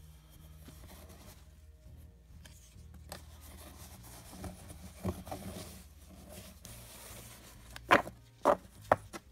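Baseball cards being handled and sorted by hand, with a few sharp taps near the end as cards and stacks are set down on the tabletop. A low steady hum runs underneath.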